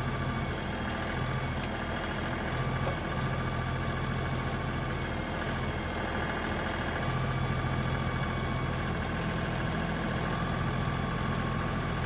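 LS compact tractor's diesel engine running steadily at working throttle while its backhoe hydraulics curl the bucket against a stump; the engine note swells and dips slightly as the load changes.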